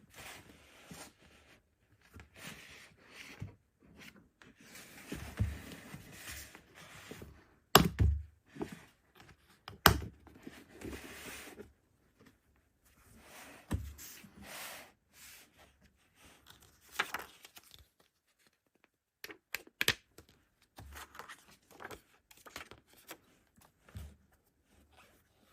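Packaging being handled during an unboxing: irregular rustling, tearing and scraping of box and wrapping, with a few sharp knocks as parts are set down, the loudest about eight and ten seconds in.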